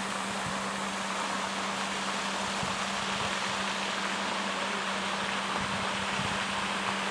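Pond fountain spraying and splashing: a steady, even hiss of falling water, with a faint constant low hum under it.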